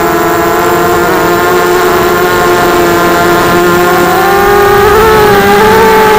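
Quadcopter's four 2300 kV brushless motors and propellers whining steadily, the pitch rising somewhat about four and a half seconds in as the throttle is opened.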